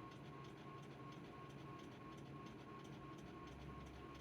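Near silence: faint hiss and low hum of the recording, with faint regular ticking and a faint high tone that pulses rapidly on and off.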